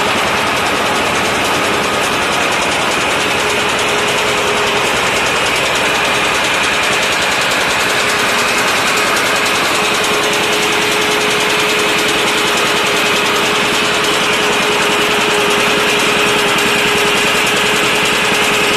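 Small stationary engine running steadily, driving a homemade well-drilling rig through belts, a chain and bevel gears, with a continuous mechanical clatter from the drive.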